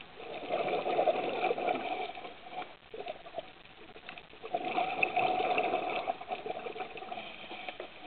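A scuba diver's regulator venting exhaled air as bursts of bubbles, twice, each about two seconds long with a quieter pause for the in-breath between them.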